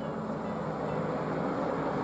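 A heavy truck engine running steadily: an even rumble with a low hum.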